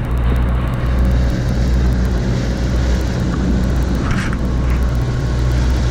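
Steady low drone of the sportfishing boat's engine, with churning water rushing along the hull.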